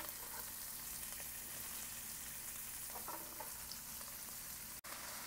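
Hot oil sizzling in a frying pan under freshly added chopped cabbage and a tempering of dals, mustard seeds and green chillies: a steady frying hiss, broken for an instant near the end.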